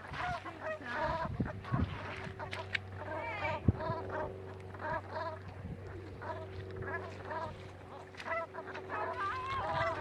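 Birds calling: a run of many short, repeated calls, two to three a second, over a steady low hum.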